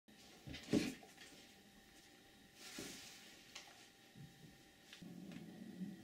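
Faint handling noises in a small room as over-ear headphones are put on: a sharp thump about a second in, a brushing rustle around three seconds, then a few light ticks and knocks.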